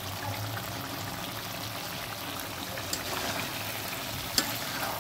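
Watery potato-curry gravy boiling steadily in an iron karahi as its water cooks off, with one sharp click near the end.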